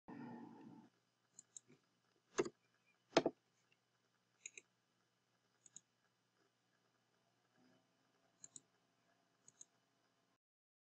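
Faint, scattered clicks of a computer keyboard and mouse: single clicks and quick pairs, the two loudest a little under a second apart about two and three seconds in. A short soft noise comes at the very start.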